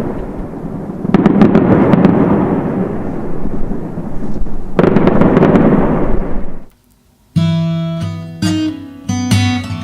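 Fireworks going off in a dense, continuous barrage, with fresh loud bursts about a second in and again near five seconds, then cutting off suddenly. After a moment of silence, acoustic guitar music starts with plucked notes.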